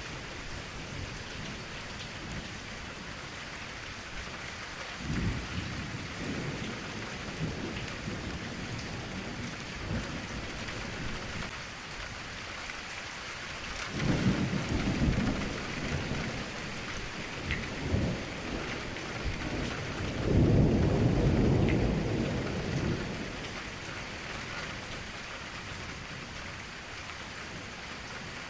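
Steady rain with thunder rumbling over it several times, the longest and loudest roll about two-thirds of the way through.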